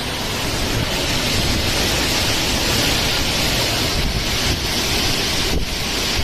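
Cyclone winds and heavy rain: a loud, steady rushing hiss with wind rumbling on the microphone, dipping briefly near the end.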